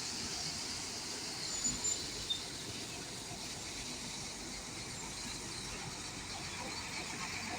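Steady road-traffic noise from passing vehicles, with a few brief knocks about two seconds in.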